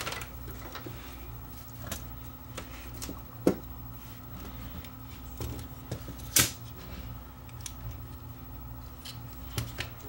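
Scattered small clicks and taps of tools and plastic camcorder housing parts being handled during disassembly, with two sharper clicks about three and a half and six and a half seconds in, over a steady low hum.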